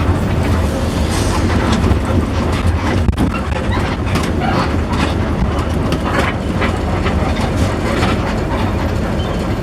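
Inside a bus on the move: a steady low rumble of engine and road, with rattling and clicking from the body throughout.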